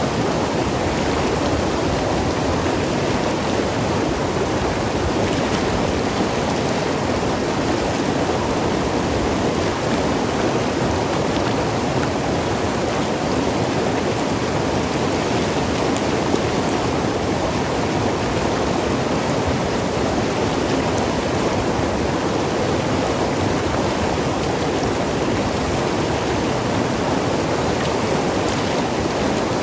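Mountain river flowing and tumbling over rocks, a steady rush with gurgling.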